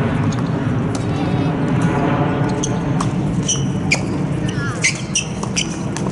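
Tennis ball struck by rackets and bouncing on a hard court during a doubles rally: a series of sharp single pops, several seconds apart, over a steady low rumble.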